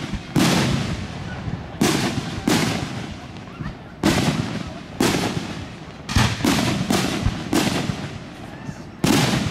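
Fireworks display: aerial shells bursting in about a dozen sharp booms at irregular spacing, each trailing off in a rolling echo.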